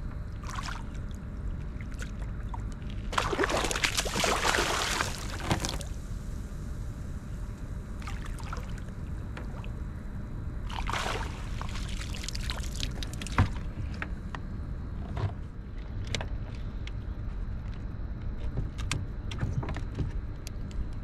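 Hooked fish splashing and thrashing at the surface beside a kayak in two bursts, about three seconds in and again around eleven seconds, over a steady low rumble. A few sharp clicks and knocks follow near the end.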